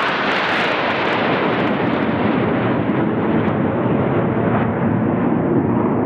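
Formation of jet aircraft flying overhead: a steady, loud rush of jet engine noise that keeps an even level throughout.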